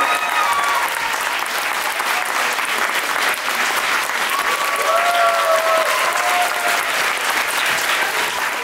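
Audience applauding: dense, sustained clapping, with a few voices calling out over it around the middle.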